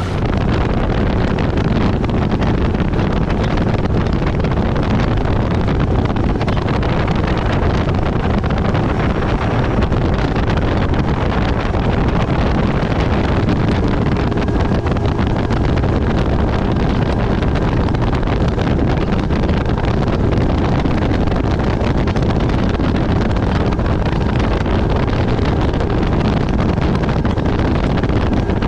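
Fishing boat running at speed on open water: steady wind buffeting the microphone over the low drone of the outboard motor.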